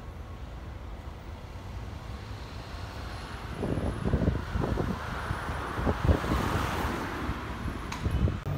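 City street traffic: a steady low rumble, with a vehicle passing that swells and fades through the middle, and wind gusting on the microphone.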